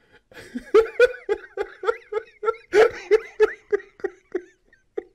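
A woman laughing hard: a long run of rapid, evenly spaced 'ha-ha' pulses, about three a second, trailing off near the end.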